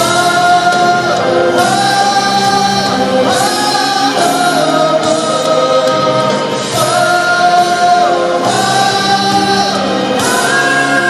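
Group of voices singing in harmony, holding long notes that move together to a new chord every second or two.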